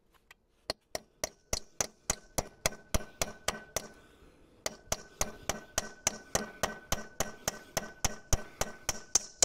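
Hammer striking a chisel against the sheared stub of a motorcycle sump plug, rapid metal-on-metal blows at about four a second with a brief pause near the middle, and a faint ring under them. The blows are chiselling the stuck plug remnant round to unscrew it from the sump.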